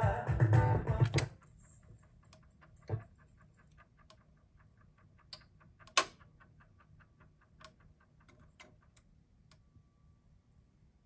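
A rock record playing on the turntable stops about a second in, when the Pioneer PL-A45D's cut lever is pressed. The fully automatic return mechanism then lifts the tonearm and carries it back to its rest: a run of quick light ticks, a soft thump, and then several sharper clicks spread over the following seconds.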